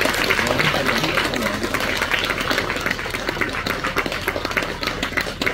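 Crowd clapping and applauding steadily, with a few voices mixed in.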